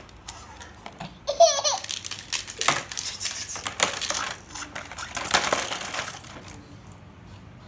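Small plastic toy pieces clattering and clicking against each other in a plastic bowl as they are handled. A short high baby squeal of laughter comes about a second and a half in.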